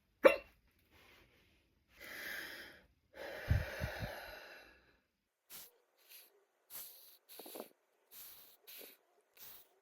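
A single sharp hiccup, then two long noisy breaths and a run of short, quick breaths about one to two a second.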